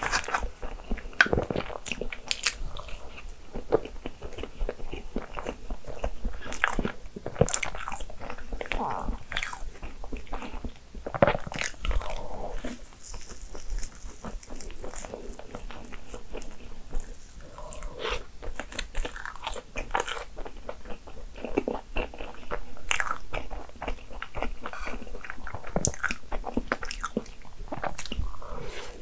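Close-miked eating of a crepe cake with fresh cream: chewing and wet mouth sounds with frequent small clicks and smacks throughout.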